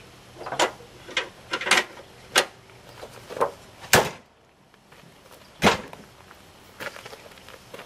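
A car's hood being lowered and slammed shut: a run of knocks and clunks, the sharpest a slam about four seconds in, followed by another heavy thump a little before six seconds.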